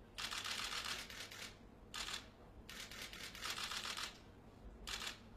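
Press photographers' camera shutters firing in rapid bursts of quick clicks: a long burst near the start, a short one, another long burst in the middle and a short one near the end.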